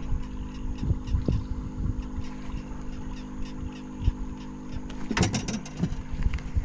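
Steady hum of a boat motor with a low, uneven rumble of wind or water under it. About five seconds in there is a brief rattle of sharp clicks.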